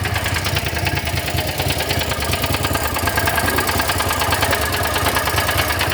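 Small Landmaster engine running steadily at idle, with a fast, even pulse.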